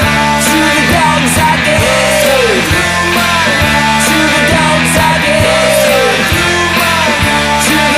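Acid punk rock song played by a full band: distorted guitars over drums and cymbals, with a note that slides down in pitch about every three and a half seconds.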